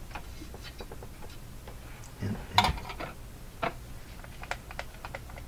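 Irregular small clicks and taps of hands handling a tube radio's controls and antenna connection, with one louder clack about two and a half seconds in, over a low steady hum.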